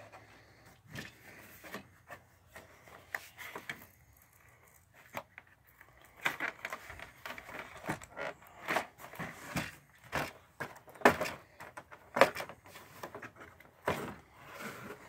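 Hands handling a cardboard toy display and small plastic toy pieces: irregular scrapes, taps and knocks, busier in the second half, with two sharper knocks near the end.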